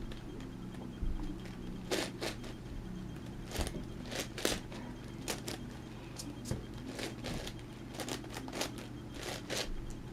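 Irregular plastic clicks and clacks of an 11x11x11 Rubik's cube's layers being turned, over a steady low hum.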